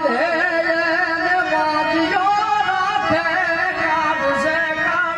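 Gujarati devotional song: a male singer holds long, wavering, ornamented notes over steady instrumental accompaniment.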